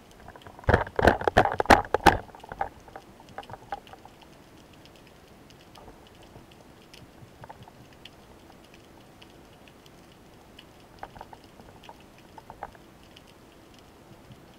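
Underwater sound from a spearfishing camera: a quick cluster of loud clicks and knocks about a second in, then scattered faint clicks over a quiet underwater background.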